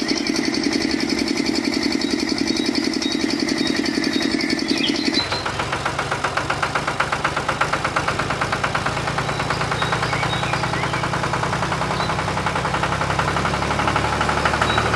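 A small motor running steadily with a fast pulsing rhythm. About five seconds in it changes abruptly to a lower, rougher running sound that carries on to the end.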